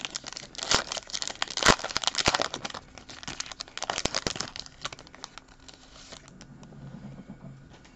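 Foil wrapper of a Panini Select soccer card pack being torn open and peeled apart by hand: crinkling and tearing of the foil, dense for about five seconds, then thinning out.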